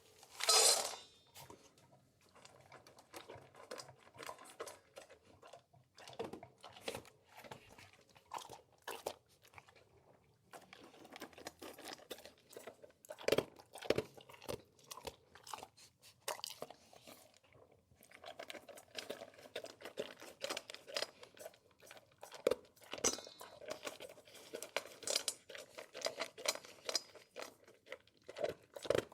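A big dog eating, chewing its food in a dense, irregular run of short crunching clicks, with one louder burst about half a second in.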